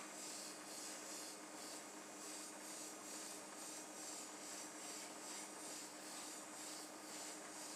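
Faint steady hum and hiss from a small motor, the hiss pulsing about twice a second.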